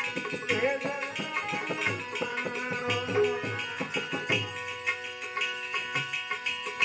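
Devotional bhajan music in an instrumental passage: tabla drumming under sustained melody tones. The drumming thins out after about four and a half seconds.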